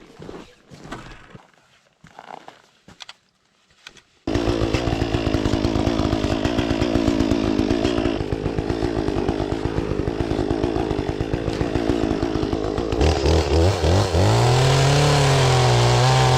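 A chainsaw's two-stroke engine starts abruptly about four seconds in and runs loudly and unevenly. Near the end its pitch rises and then holds steady.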